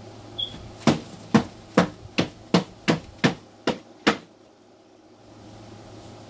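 Cardboard egg crate knocked about nine times against a container to shake Dubia roaches off it. The sharp knocks come about three a second and stop about four seconds in.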